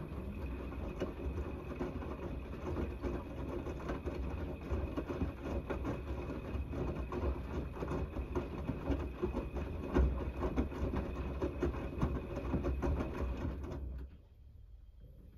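Gorenje WNEI front-loading washing machine's drum tumbling a wet, soapy load during the main wash of a 90 °C cotton programme. The motor runs with a faint steady whine over a low hum, and the laundry and water slosh and slap with many small knocks. It stops abruptly near the end as the drum pauses.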